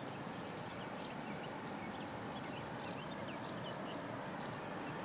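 Distant class 754 diesel locomotive with a passenger train approaching, a steady low rumble, with birds chirping over it.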